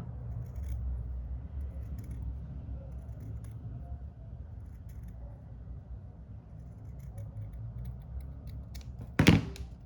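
Scissors cutting a small circle out of felt: faint, scattered snips over a low hum, then one loud clack near the end.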